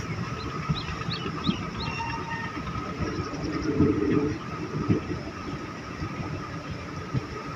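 Passenger train running along the track, heard from an open coach doorway: a steady rumble of wheels on rail with irregular knocks and a faint steady high tone, swelling louder for a moment about four seconds in.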